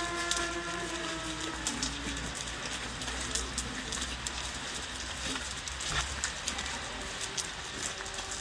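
Light rain pattering outdoors, a steady hiss with scattered small ticks. A held musical note fades out about two seconds in.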